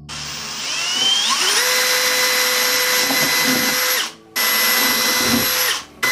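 Electric drill spinning up with a rising whine, then running steadily as it bores a row of small holes through the side of an old suitcase. It stops briefly about four seconds in and again near the end, starting again each time.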